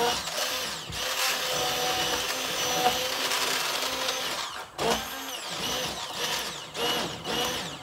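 Hand-held immersion (stick) blender running in a pot of cooked strawberries, puréeing them into a sauce: a steady motor whine that stops briefly a little past halfway, then runs again a little quieter.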